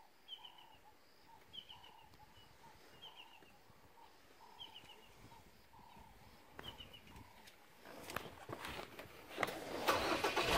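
A bird calling over and over, about every second and a half, each call a short lower note followed by a high, stepped chirp. Near the end, knocks and then a louder rumble of the open game-drive vehicle take over.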